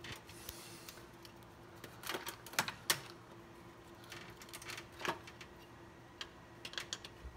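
Scattered sharp metallic clicks and scrapes from a screwdriver and pliers prying at the coolant bypass hose fitting on a Ford 302 V8. The loudest clicks come a little under 3 s in, over a faint steady hum.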